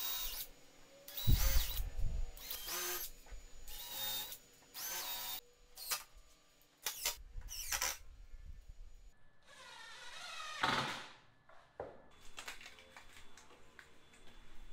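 DeWalt cordless drill/driver driving screws down through a plywood workbench top in a series of short runs, the motor's whine climbing at the start of each, with one longer run about two-thirds of the way in.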